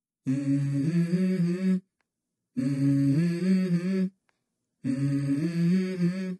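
Background music: three held chords, each about a second and a half long, with short silent gaps between them.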